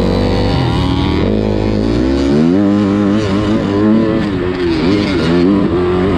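Motocross bike engine revving while being ridden, its pitch climbing about two seconds in, then rising and falling several times as the throttle is opened and closed.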